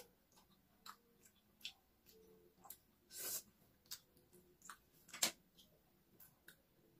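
Close-up eating sounds of a person eating ripe mango by hand: scattered short wet mouth clicks and smacks, with a longer, noisier sound about three seconds in and a sharper smack about five seconds in.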